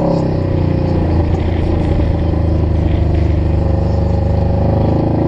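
Supercharged Polaris RZR side-by-side's engine heard from inside the open cab. The revs drop right at the start as it backs off, stay lower through the middle with a rough low drone, then climb again near the end as it accelerates.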